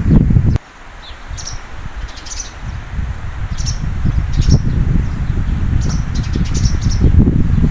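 Strong wind buffeting the microphone as a low rumble. It drops away suddenly about half a second in, then gusts back up over the following seconds. A small bird chirps repeatedly over it.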